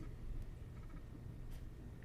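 Quiet room with a steady low hum and one faint click about one and a half seconds in: trading cards being handled as a pack is gone through.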